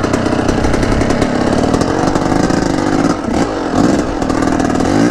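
Yamaha YZ250 two-stroke dirt bike engine running as the bike is ridden at low speed. The pitch rises and falls a little with the throttle, with a couple of short revs from about three seconds in.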